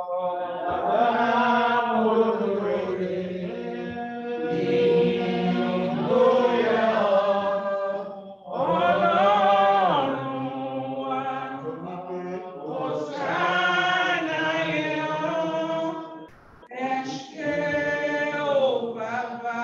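Group of voices singing a slow hymn without instruments, in long held phrases with short breaks between them.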